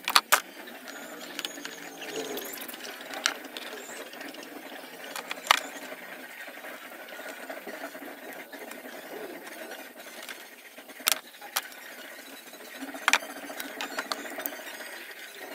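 Metal spring clamps and a welding electrode holder handled on a wooden table, with cables dragged across it: scattered sharp clicks and knocks, a pair right at the start and single ones spread through, over a steady background hiss.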